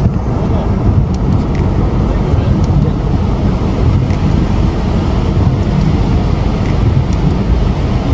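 Steady low noise inside a car cabin: the car running with rain on the windshield and the wipers sweeping.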